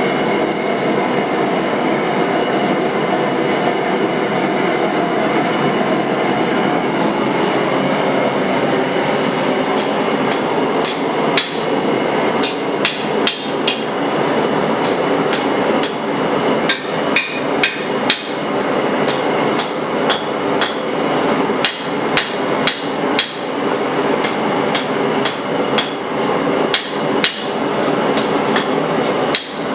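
Hand hammer striking steel on an anvil while forging a broadhead: a long run of sharp, irregular blows starting about a third of the way in, over a steady rushing noise throughout.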